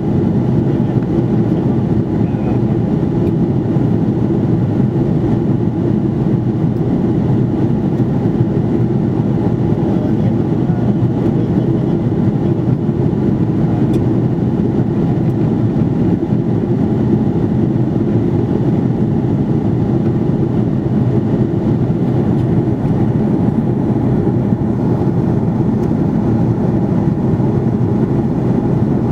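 Steady cabin noise of an Airbus A330-300 in flight, heard inside the cabin: a constant low rumble of engines and airflow that does not change in level.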